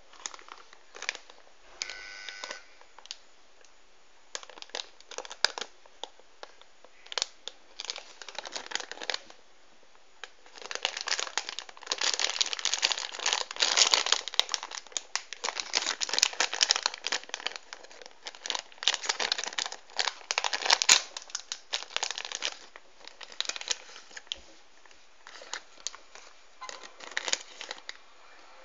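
Foil blind-bag packet crinkling and rustling as hands handle and open it. Short bursts at first, then almost continuous crinkling for about ten seconds in the middle, then scattered rustles again near the end.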